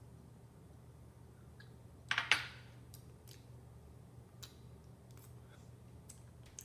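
Light handling noises while preparing food: a short scraping burst about two seconds in, then a few scattered light clicks and taps.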